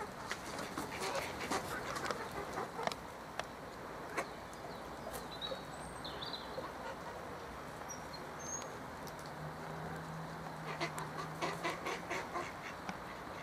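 Mallard ducks fighting: wings flapping and quacking in a flurry of short sharp sounds during the first few seconds and again near the end.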